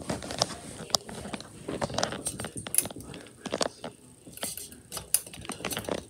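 Irregular clicks, light knocks and metallic jangling as a hand works a ceiling fan's beaded metal pull chain and fixture close to the microphone.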